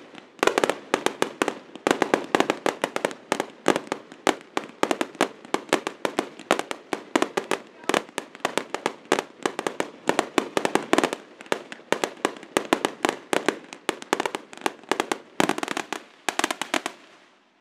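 Rapid barrage of aerial firework shells bursting, several sharp bangs a second, stopping just before the end.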